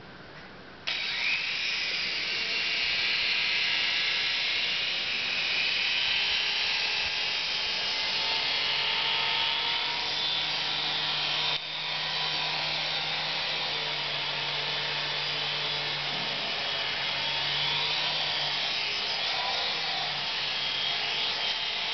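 Small coaxial RC toy helicopter's electric motors and rotors starting suddenly about a second in, then a steady high whirring buzz as it flies, with one brief dip in the middle.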